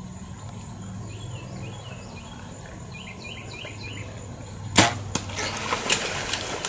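A 45-pound Hoyt Pro Defiant compound bow fired: a sharp snap of the string about 4.8 s in, a second crack a moment later as the arrow strikes the hog, then scattered clicks and rustling as the hogs bolt through the brush.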